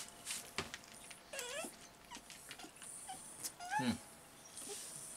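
A dog whimpering: two short whining cries that slide in pitch, one about a second and a half in and a longer one near four seconds.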